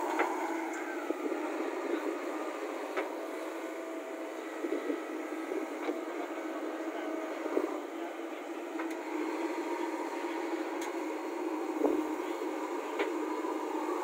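JCB backhoe loader's diesel engine running steadily under load as it digs and loads soil, with a few sharp knocks and clatters from the bucket and dirt, the loudest about twelve seconds in.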